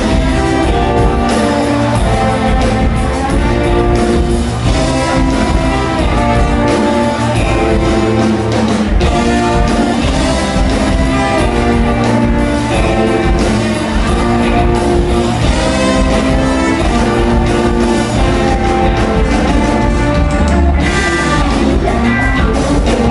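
Live brass band playing: trombones, trumpet and sousaphone carrying held horn lines over a drum kit and electric guitar, at a loud, steady level.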